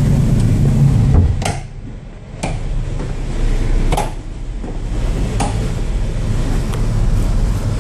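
Steady low machinery hum of a crew boat underway, heard inside its accommodation, which dips briefly about two seconds in. A few short knocks and clicks, about four, come from doors and door handles being worked.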